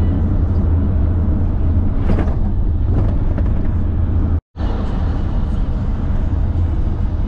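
Intercity bus running on the road with a steady, loud low engine and road rumble. The sound drops out for a moment about four and a half seconds in.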